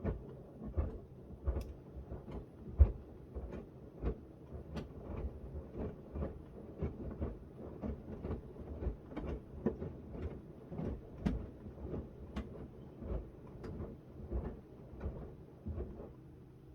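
Miele W1 front-loading washing machine drum turning in the wash cycle: a small load of shirts tumbling and dropping inside the drum, giving irregular thuds and knocks about twice a second over the low hum of the drive motor.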